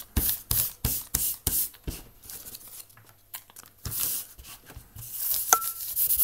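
A piece of paper loaded with charcoal patted and swiped against plaid shirt fabric, about three quick strokes a second for the first two seconds. After a pause, steady rubbing of the paper into the fabric begins, with one sharp click near the end.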